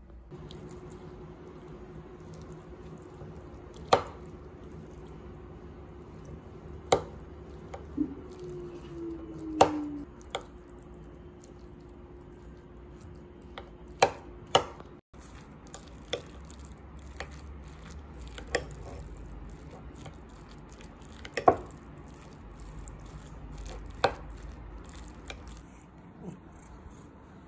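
Metal spoon clinking against a ceramic bowl while mixing rice with fried egg: sharp, irregular clinks, about a dozen in all, over a faint steady hum that stops about halfway.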